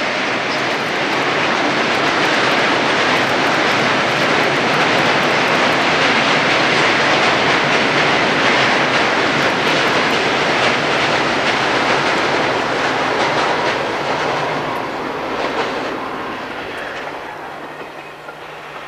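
Steam-hauled passenger train rolling across a steel truss railway bridge, its wheels rumbling and clattering on the bridge deck. It is loudest midway and fades away over the last few seconds as the train clears the bridge.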